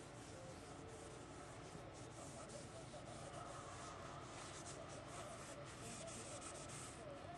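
The hard scrubbing side of a sponge rubbing back and forth on a wood-grain door panel: a faint, raspy scrubbing in short repeated strokes.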